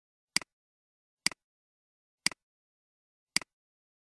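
Computer mouse clicking four times, about a second apart. Each click is a sharp press followed at once by a softer release.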